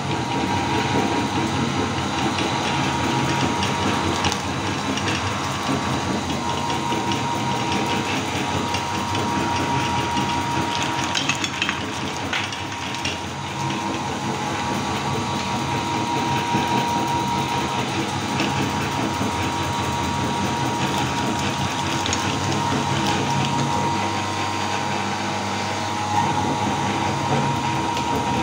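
Belt-driven electric meat grinder running steadily, its motor giving a steady whine and hum, with crackling as hard mini cookies are crushed through the grinding plate.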